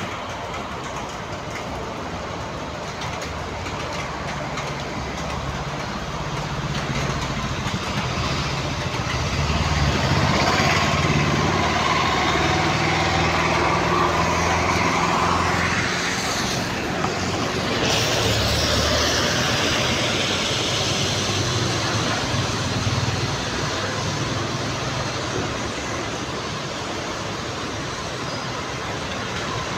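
City street traffic: motor vehicles passing on the road, with an engine hum that builds to its loudest about ten to fifteen seconds in and then fades back to a steady traffic noise.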